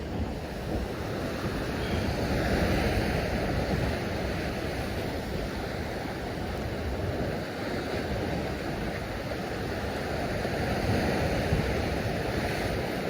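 Sea waves washing against the shore rocks, swelling louder a couple of seconds in and again near the end, with wind noise on the microphone.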